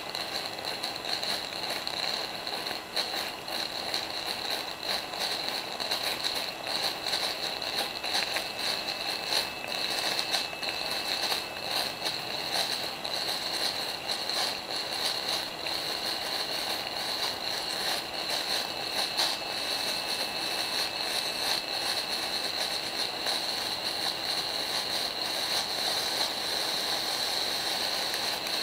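A small 12-volt smoke generator running steadily: a constant high-pitched whir with a thin whine, and fine crackling throughout as it puts out smoke.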